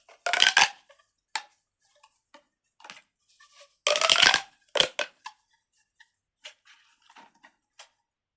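Plastic pop tube fidget toys being stretched and squashed: two loud spells of rapid ribbed-plastic popping with a rising whirring tone, near the start and again about four seconds in, with single clicks and light plastic handling between.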